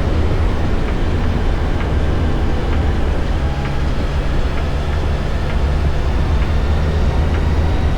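Yamaha FJR1300 motorcycle's inline-four engine running steadily at cruise, a steady low drone.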